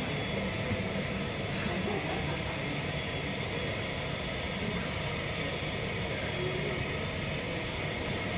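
Steady jet-aircraft rumble with a thin high whine held over it, the continuous engine noise of an airport apron.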